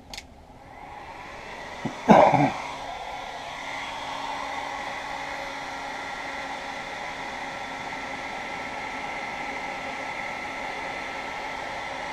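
DeWalt heat gun blowing steadily to shrink heat-shrink tubing over a wire connector, building up over the first few seconds and then holding. A loud clunk about two seconds in.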